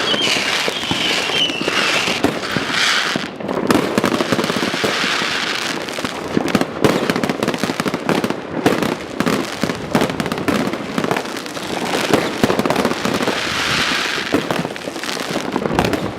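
Many New Year's fireworks going off at once: a dense, unbroken crackle of bangs and pops. There is a thin whistle in the first second or so, and a denser hissing rush about fourteen seconds in.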